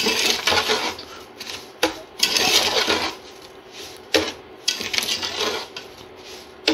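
Slotted metal spatula scraping and stirring sugar in oil around the bottom of an aluminium pot, in irregular strokes with sharp clicks of metal on metal. The sugar is being mixed to start a syrup.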